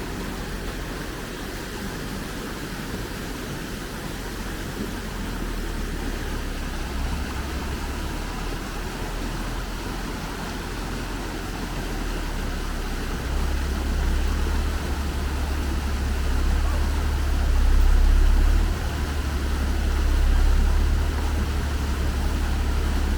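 Low, steady rumble of a heavy truck's engine, growing louder about halfway through, with two swells near the end.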